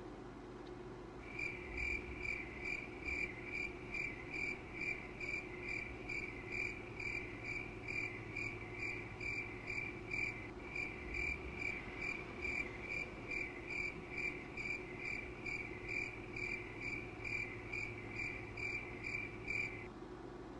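Cricket chirping, an even run of about two chirps a second that starts and stops abruptly: the comic 'crickets' sound effect for an awkward silence. A steady low hum runs underneath.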